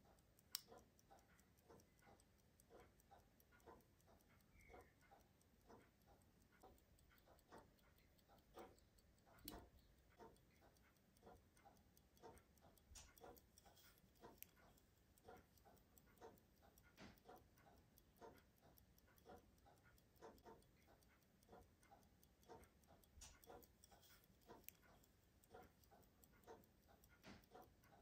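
Faint, steady ticking of a running Gustav Becker pocket watch. A few sharper clicks come from handling its hunter case, the loudest about half a second in and about nine and a half seconds in.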